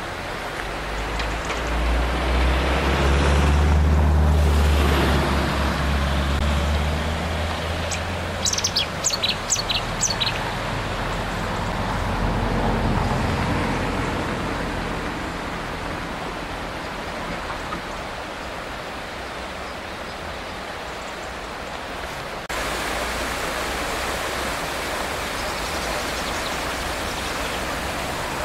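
Steady rushing of a river in flood, swollen and fast after heavy rain. A low rumble swells and fades over the first ten seconds, and a bird chirps several times about nine seconds in.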